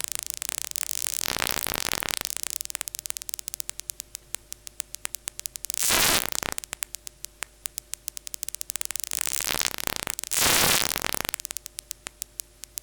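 Synthesized paper-crumpling sound from the Vital software synth: a fast stream of noisy clicks and crackles that thins out to sparse ticks, with two short dense bursts of crackle, about six and ten seconds in. Faint steady tones hang under the clicks, the leftover musical oscillation of a not-yet-random enough effect.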